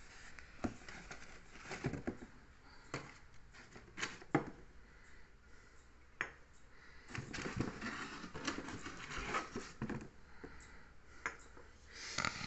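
Small cardboard medicine boxes, glass vials and packets clicking, knocking and rustling as a hand rummages through a cardboard carton: scattered light clicks, busiest a little past the middle.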